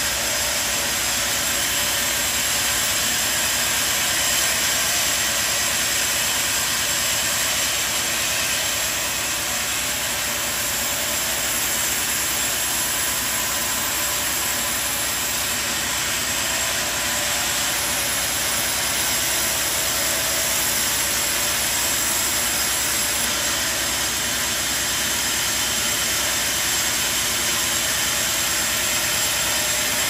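Steady machinery noise with a strong hiss, unchanging throughout and with no distinct strikes or cuts.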